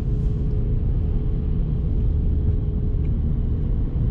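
Steady low road and engine rumble heard inside a moving car's cabin, with a faint steady hum that fades out about three quarters of the way through.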